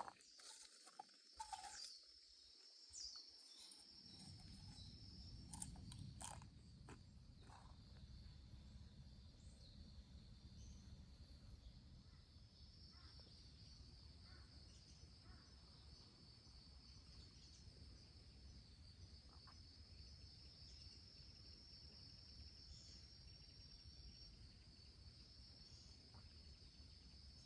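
Faint, steady high-pitched trilling of insects, with a few soft clicks in the first several seconds.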